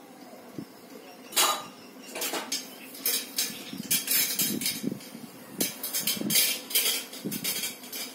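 Bedding rustling in a quick, irregular series of short bursts with light clinks as a baby squirms and rolls over on a quilt.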